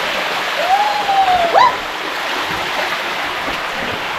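Shallow stream water rushing steadily down a narrow rock chute, with a brief rising squeal about one and a half seconds in.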